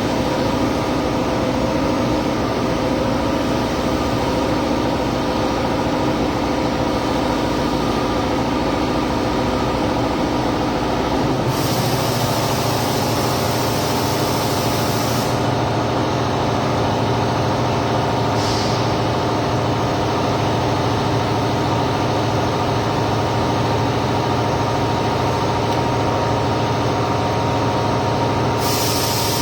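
Steady, loud machine hum with several held tones over a noisy rumble. A higher hiss switches on for a few seconds about a third of the way in, briefly a little later, and again near the end.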